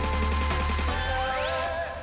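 Background music with a heavy bass and a steady beat; about a second in a rising sweep sounds, and near the end the beat and high end drop away.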